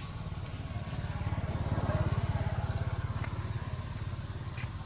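A small engine running with a low, even pulse, growing louder to about two seconds in and then fading, as of a motorbike passing. Several short high chirps from small birds sound over it.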